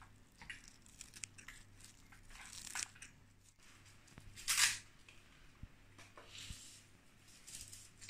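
Faint scattered rustling and scraping sounds, the loudest about halfway through, over a low steady hum.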